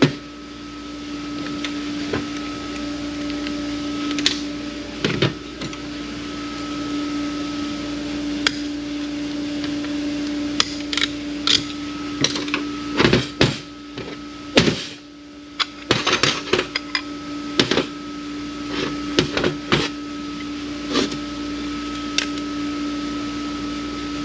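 Metal parts of a Ford AOD automatic transmission being handled during teardown: scattered short clinks and knocks of clutch plates and drum parts, over a steady electrical hum.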